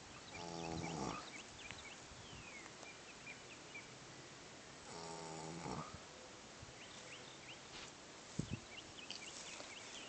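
A horse, lying flat asleep, snoring: two drawn-out snores under a second each, rising in pitch, about five seconds apart. A short thump comes about eight seconds in.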